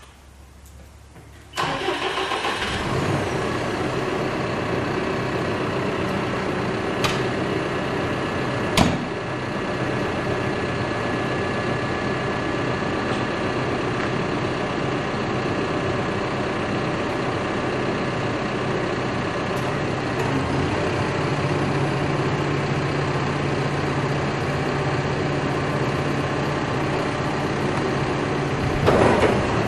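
Caterpillar backhoe loader's diesel engine starting up about a second and a half in, then running steadily at idle, with two sharp clicks around seven and nine seconds in and a brief rise in loudness near the end.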